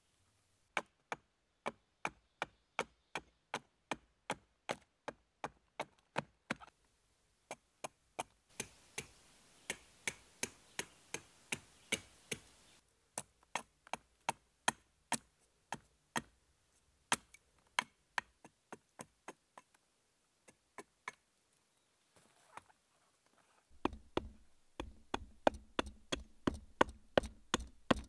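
Hatchet hewing a wooden spoon blank braced on a log: a steady run of sharp chops, about two or three a second, with a few short pauses.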